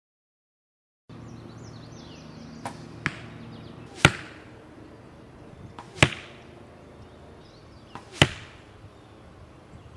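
Three arrows from a compound bow striking a TM50 foam FITA target mat, each a sharp thud. Each hit follows a fainter snap of the bow's shot by about a quarter of a second.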